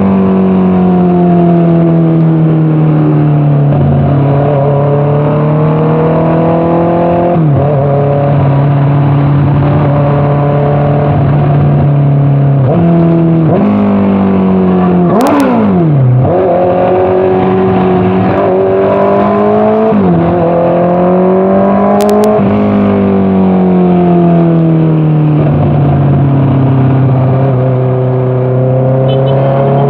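Honda CBR650R's inline-four engine through an aftermarket Orion exhaust while riding. The engine note climbs and falls with the revs, dropping suddenly in pitch at each gear change, and there are two sharp clicks partway through.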